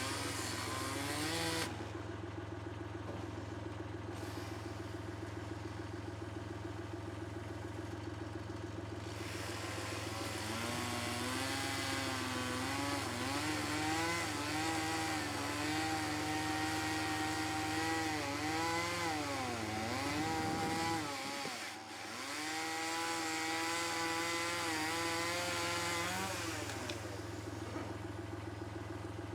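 An engine running steadily, its pitch wandering up and down and dipping sharply about two-thirds of the way through before picking up again, over a steady low hum.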